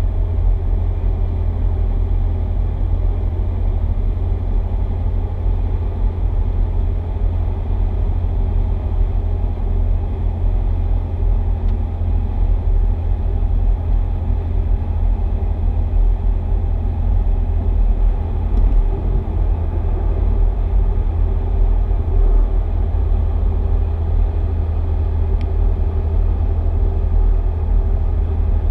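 Steady low rumble of a car cruising on a motorway, heard from inside the cabin: engine and tyre-on-road noise, even throughout with no sudden events.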